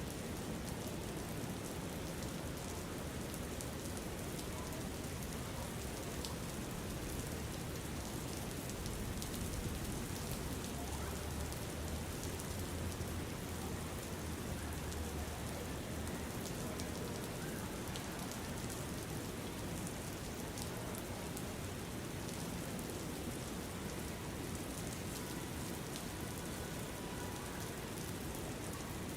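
Steady rain falling, with a continuous hiss and many fine patters of drops; a low rumble swells for several seconds midway.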